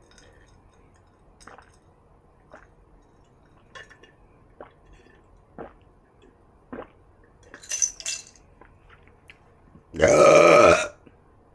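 A woman lets out one loud, long burp about ten seconds in, lasting roughly a second. Before it there are only a few soft clicks and taps and a brief sharper, higher sound.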